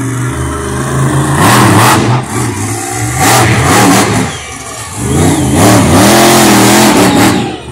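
Monster truck engine revving hard, its pitch rising and falling, with the throttle backing off about two seconds in and again around four to five seconds in, the second time during a jump, before it revs up again.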